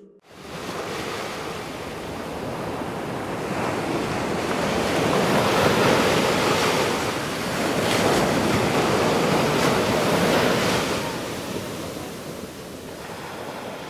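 Ocean surf washing onto the shore in a steady rush, swelling louder through the middle and easing off near the end.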